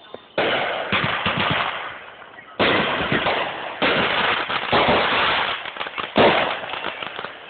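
Fireworks going off: about five sharp bangs, each followed by a dense run of rapid crackling that fades.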